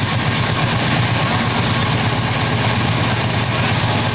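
Train noise: a steady, loud low rumble with an even hiss over it, unchanging throughout.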